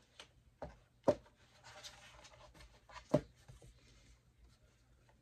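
A collapsible bowl being pulled open by hand: two sharp pops about two seconds apart as its folded sides snap out, with rubbing and handling noise between.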